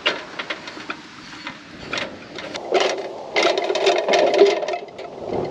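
A small propane cylinder is fitted to a two-burner camp stove with light metallic clicks, then a skillet and a saucepan clatter and scrape onto the stove's metal grates, the densest rattling about three to five seconds in.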